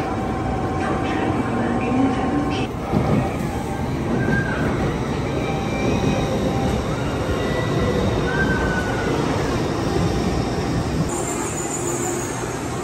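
N700S Shinkansen bullet train moving past alongside the platform: a steady rush of wheels and air, with a couple of short, high squealing tones partway through.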